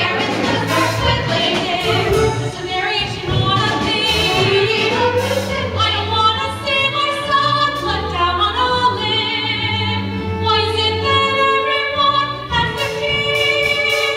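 Stage-musical number: voices singing with vibrato over instrumental accompaniment.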